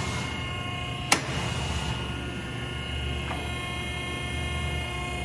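Hydraulic power unit running steadily: a low hum with a high whine, and the whine shifts in pitch about three seconds in. A single sharp metallic click comes about a second in.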